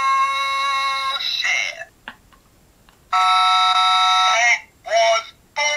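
Novelty 'bullshit button' pressed twice: each press sounds a steady electronic buzzer tone for about a second and a half, followed by a short recorded voice, the second press about three seconds in.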